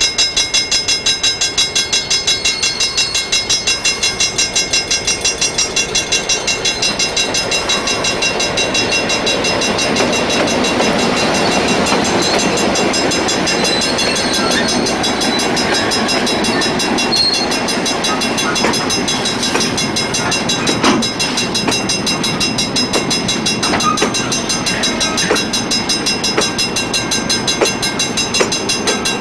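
Train rolling past on the rails, its wheels and wagons growing louder through the middle, with scattered sharp clanks later on.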